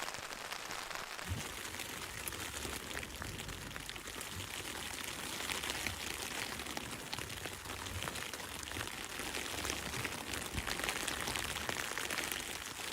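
Light rain pattering on the fly of a Big Agnes Copper Spur tent: a steady hiss of many small drop ticks.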